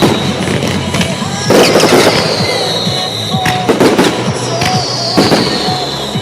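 Fireworks going off in quick succession, sharp bangs and crackles with heavier bursts about a second and a half in and again near four and five seconds, over the show's pop music soundtrack.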